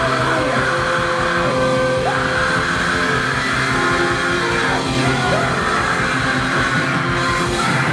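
Ska-punk band playing loud live music, a fast, steady drumbeat under held notes.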